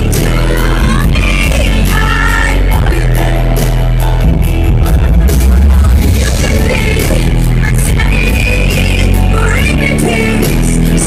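Loud live pop concert music with a singer's voice over it and a heavy, steady bass.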